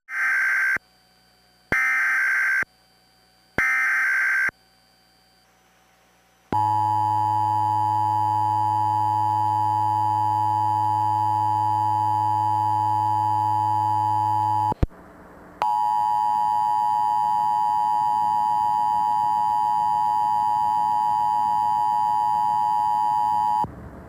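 Emergency Alert System broadcast: three short screeching bursts of SAME header data about a second apart, then the EAS two-tone attention signal sounding steadily for about eight seconds. It cuts off with a click, and after a brief gap a second attention signal sounds for another eight seconds, the alert being relayed twice.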